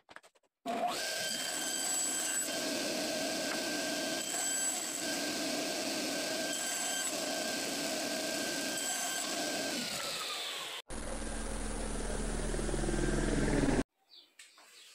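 Table saw running and ripping wood strips, the blade biting into the wood several times, then the motor winding down in pitch about ten seconds in. A different steady low hum follows for about three seconds.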